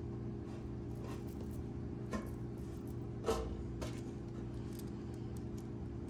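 Light clicks and taps of metal and plastic costume-jewelry earrings being handled, the clearest a small knock about three seconds in, over a steady low hum.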